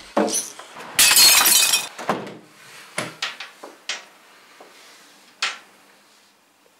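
Glass shattering in one loud crash about a second in, followed by a few separate clinks and knocks as pieces fall.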